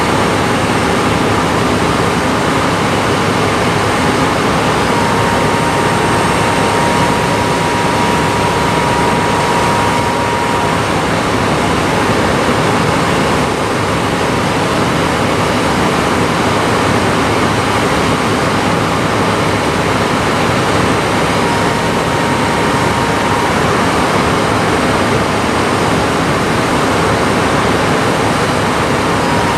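Heavy hydraulic machinery running steadily under load: an excavator's diesel engine and hydraulic drive head turning a steel ground screw into frozen ground. A thin high whine rises out of the din a few times and fades again.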